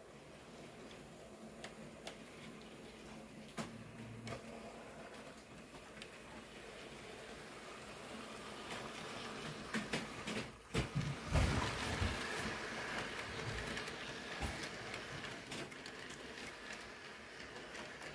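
HO scale model train running on the layout's track, growing louder as it approaches and passing close by from about ten seconds in, with scattered clicks.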